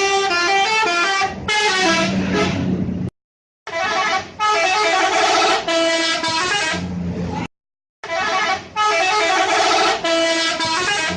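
Telolet bus horns, sets of musical air horns, playing quick melodies of stepped notes. There are three separate bursts of tune, each cut off abruptly by a short silence, about three and seven and a half seconds in.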